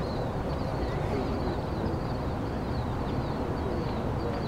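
Small birds chirping in a steady run of short high notes, over a low steady rumble.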